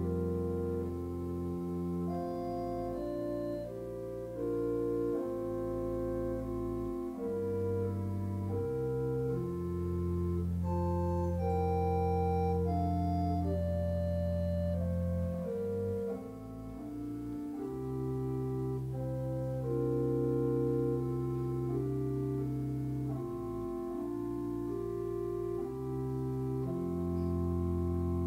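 Church organ playing slow, sustained chords over long-held bass notes.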